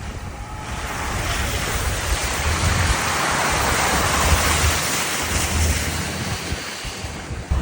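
A vehicle driving on a wet, muddy track. A rushing hiss swells about a second in, is loudest in the middle and fades near the end, over the low rumble of the vehicle.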